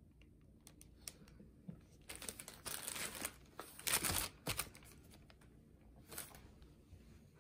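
Paper shopping bag crinkling and rustling as books are handled and set down on it, with a few light taps. The rustling is loudest from about two to four and a half seconds in, with one more short rustle near the end.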